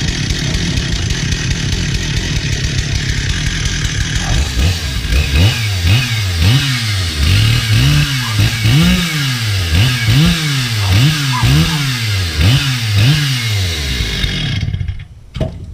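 Stihl two-stroke chainsaw running just after starting, being warmed up and tested. It runs unevenly at first, then its throttle is blipped about ten times, about once a second, each rev rising and falling in pitch. The engine is switched off near the end.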